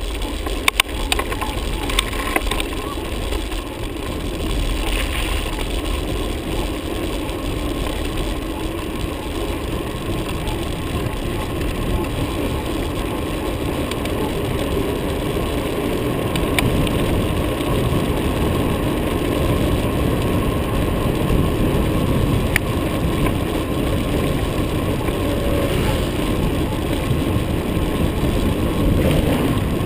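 Wind and road rumble on the microphone of a camera riding on a moving mountain bike, a steady rush with a few sharp clicks about a second in.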